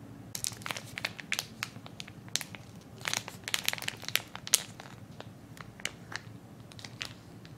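Clear plastic wrapping film crinkling as hands peel it off a block of yokan: a string of short, sharp crackles, busiest around the middle.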